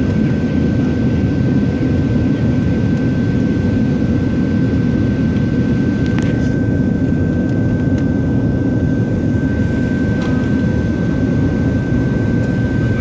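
Cabin noise of a Boeing 737-700 in flight: its CFM56-7B turbofans and the airflow make a steady, deep rumble with a thin high whine held through it. A faint click about six seconds in.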